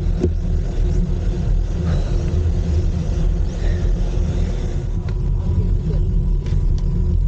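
Steady low rumble of wind and road noise on a cyclist's camera microphone while riding, with a few faint clicks about five to seven seconds in.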